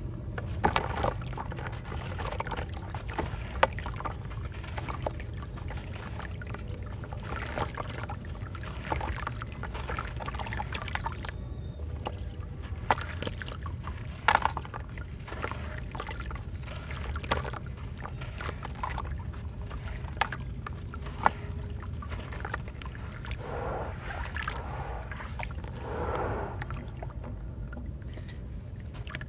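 Dried sand-cement pieces crumbling and breaking apart in water: irregular crackles, cracks and small splashes, with water trickling, over a steady low hum.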